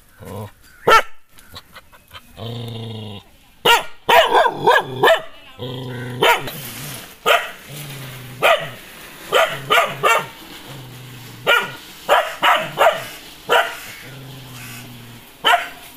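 Nadan dog barking aggressively at strangers: sharp barks in quick runs, alternating with low growls that each last about a second.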